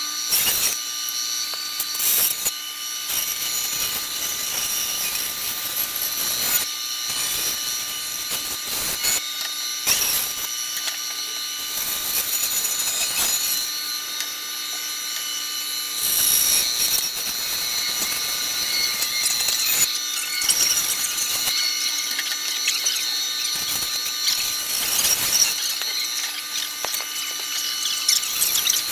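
Power saw running while cutting out the rough outline of a template. It starts abruptly and runs steadily, with a constant high whine and occasional brief louder spikes as the blade bites.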